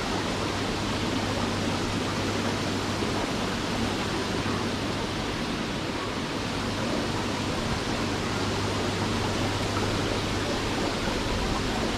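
Steady rushing hiss of running water and aeration with a low, even pump hum.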